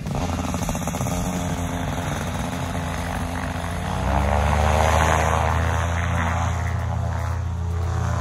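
Paramotor engine and propeller running, growing louder and rising in pitch about four seconds in as the throttle opens for the takeoff run.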